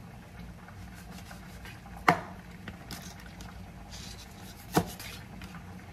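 Kitchen knife cutting through skate between its soft cartilage bones, knocking sharply on the cutting board twice, about two and a half seconds apart, over a faint steady hum.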